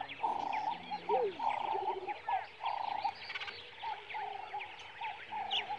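A chorus of animal calls: repeated short trilled notes over many quick chirps.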